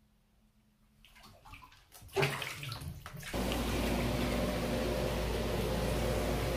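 Water sloshing and splashing in a whirlpool tub. About halfway through, the tub's jets start abruptly: a steady rush of churning, bubbling water over a low pump hum.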